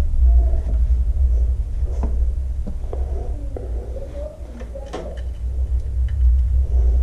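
A steady low rumble with scattered faint clicks and light knocks as hands work a bolt on a motorcycle engine's side cover and wipe it with a rag.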